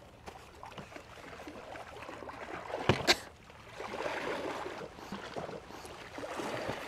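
Sea waves washing and splashing against a rocky shore, swelling and falling back several times. Two sharp knocks close together about three seconds in are the loudest sounds.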